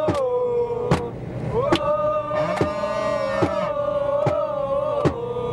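Football supporters chanting in unison, holding a long sung note that swoops up into it and falls away near the end. A steady beat of claps or drum hits comes a little more than once a second.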